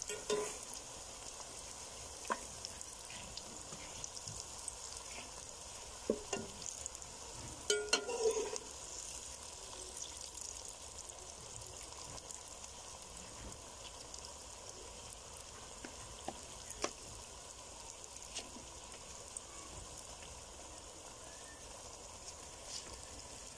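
Batter-coated eggplant slices deep-frying in hot ghee in an aluminium karahi: a steady sizzle, with clicks and scrapes from a slotted metal spoon as the slices are turned. A short call is heard about eight seconds in.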